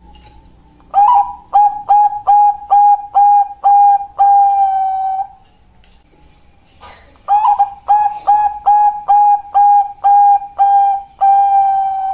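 Bangkok-type zebra dove (perkutut) singing: two song phrases. Each is a quick run of about eight short, clear coos followed by one long held note at the end.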